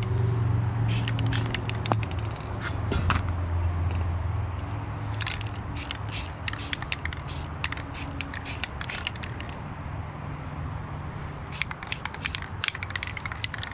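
Aerosol spray can hissing in repeated short bursts as coating is sprayed onto the bolts of a metal sand scoop, over a steady low hum.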